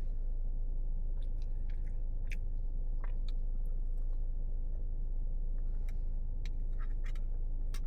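A person eating, with chewing and small scattered clicks of a utensil or food container, over a steady low hum.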